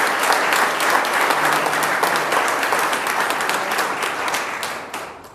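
A roomful of people applauding, the clapping dying away near the end.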